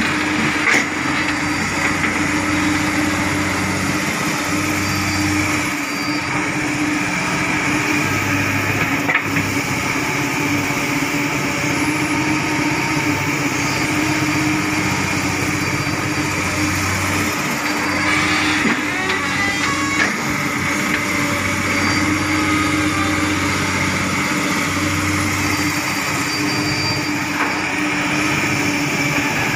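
Komatsu long-reach hydraulic crawler excavator running steadily under load, diesel engine and hydraulics giving a constant drone with a high whine, while it digs and moves excavated soil. A few brief knocks and a short burst of rattling a little past halfway.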